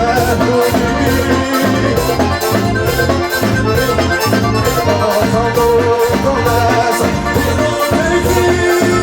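Accordion-led band music with bass and drums keeping a steady, even beat.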